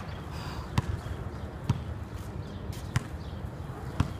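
A basketball bouncing on an outdoor asphalt court, four hard thuds about a second apart, over the low rumble of skateboard wheels rolling.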